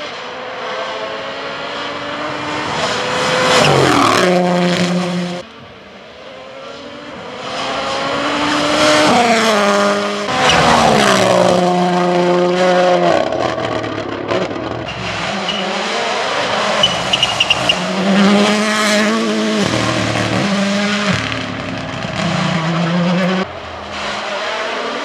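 Toyota GR Yaris Rally1 Hybrid's turbocharged 1.6-litre four-cylinder engine being driven hard. The pitch climbs through the gears, then steps down sharply on downshifts several times, and the tyres squeal in places.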